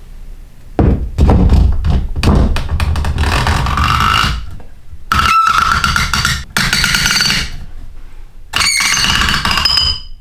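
Circular saw blade cutting into wood with a whine, in four spells of about a second or more each, with short gaps between them as the cut is repeated.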